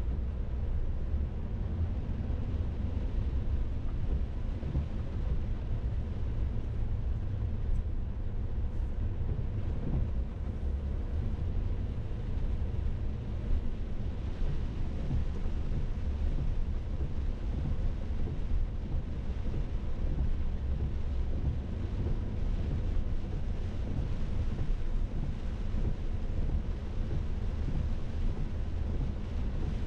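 Wind buffeting the microphone, a continuous fluctuating low rumble, over a faint steady hiss of rain.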